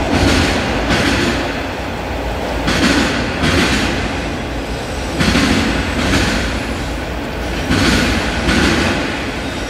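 Freight train of autorack cars rolling past, a steady rumble broken by pairs of steel-wheel clatter about every two and a half seconds, one pair as each car's wheel sets go by.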